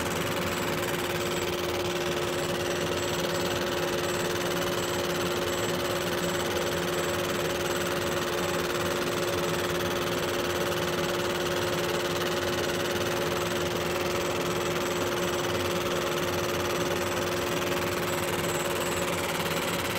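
60-watt MOPA fiber laser engraving stainless steel: a steady hum with two constant tones over an even hiss, unchanging throughout.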